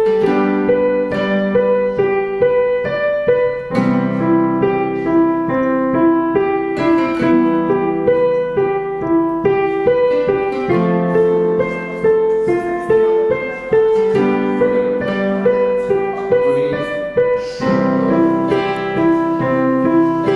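Background music: a piano playing a steady run of broken chords, with the harmony changing about every three and a half seconds.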